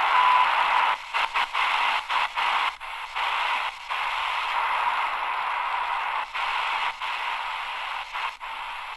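Shortwave static hissing from the AGPTEK R09 portable radio's speaker while it is tuned between stations, with a short steady tone at the very start. From about a second in, the hiss drops out briefly again and again as the dial is turned.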